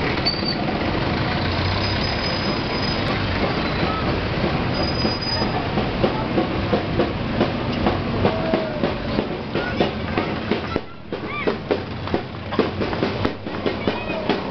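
Street procession noise: motorcycle and motorized-tricycle engines running under a general crowd din. From about six seconds in, a regular beat of sharp strokes comes in, about two to three a second.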